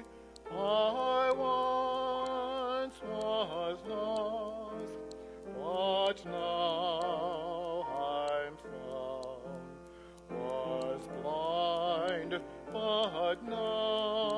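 A solo voice singing a slow hymn in a trained, operatic style, with wide vibrato on the held notes, over sustained accompaniment.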